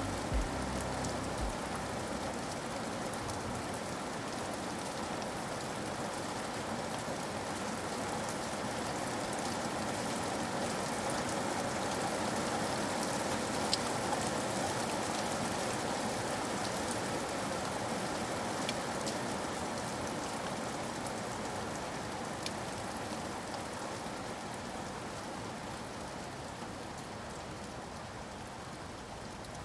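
Steady rain falling, with scattered individual drops ticking, slowly growing quieter toward the end.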